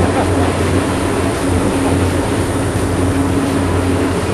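A boat's engine running steadily at speed, a constant low drone over the rush of the churning wake.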